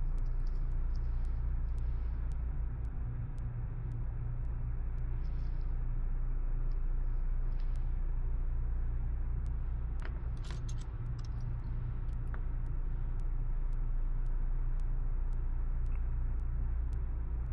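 Steady low hum from workshop machinery, with a few light metallic clicks about ten seconds in.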